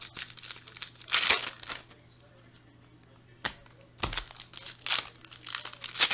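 Foil basketball-card pack wrappers being torn open and crinkled by hand, in three bursts of rustling with short pauses between.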